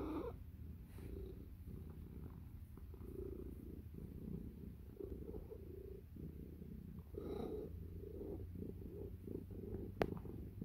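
Domestic cat purring steadily in low, swelling waves while being stroked, with one sharp click near the end.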